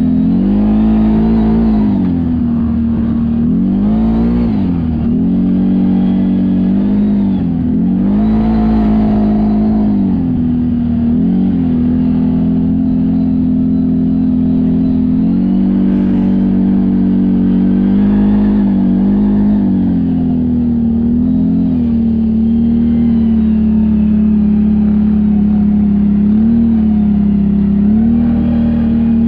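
CFMoto CForce 1000 ATV's V-twin engine running in a tunnel, holding a steady pitch with repeated throttle blips that rev it up and let it fall back, several in the first ten seconds and a few more later.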